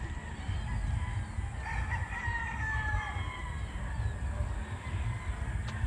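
A rooster crowing once, one long call lasting about a second and a half near the middle, that falls slightly at the end, over a steady low rumble.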